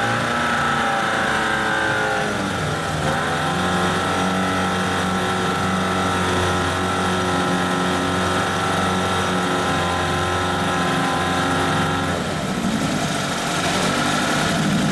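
1980 Johnson 15 hp outboard's two-cylinder two-stroke engine running, revved up and back down in the first few seconds, then holding a steady speed. About twelve seconds in its speed changes, and it picks up again near the end.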